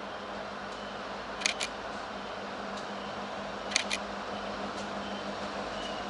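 Low steady rumble of an approaching diesel freight train. A sharp double click cuts through twice, about two seconds apart.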